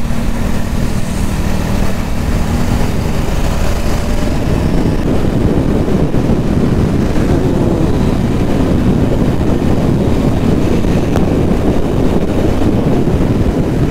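Royal Enfield Interceptor 650's parallel-twin engine running steadily at riding speed, heard from the rider's seat mixed with wind rush on the microphone.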